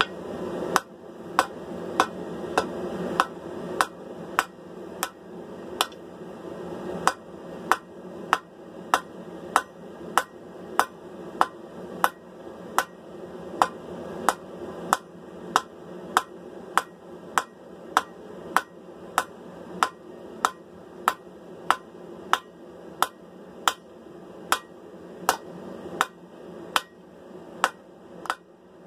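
Hand hammer striking hot steel on an anvil in a steady rhythm, about two blows a second, drawing down a sword's tang over the anvil horn, with a steady rushing noise underneath.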